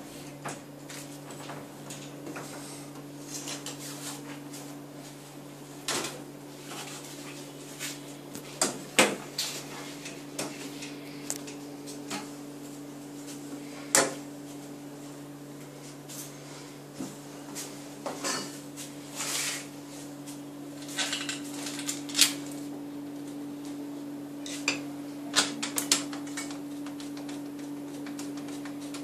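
Metal tubes and plastic fittings of a Baybee Cradle D03 frame clinking and knocking as it is handled and fitted together, in scattered sharp clicks, over a steady low hum.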